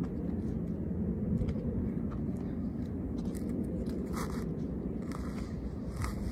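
Steady low wind rumble on a phone microphone, with five or six short scrapes and rustles spread through as someone clambers among the branches of a pine tree.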